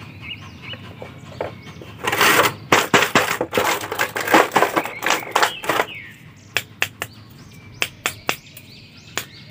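Thin clear plastic blister tray crinkling and crackling as it is handled and action figures are pressed and pulled from their moulded slots: a dense run of crackles for a few seconds, then a handful of separate sharp clicks.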